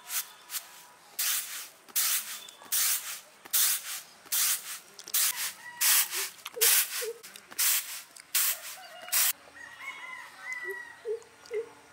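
Broken rice being shaken and tossed in a woven bamboo winnowing tray: a steady series of dry, rushing swishes, roughly one every two-thirds of a second, as the grains slide across the bamboo, stopping about nine seconds in. Near the end a bird calls with short repeated notes.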